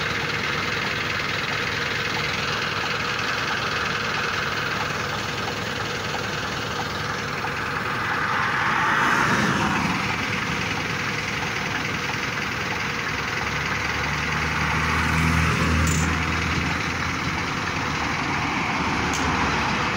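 Road traffic over a steady engine idle. A vehicle swells up and fades about nine seconds in, and a heavier vehicle with a deeper engine note swells up and fades about fifteen seconds in.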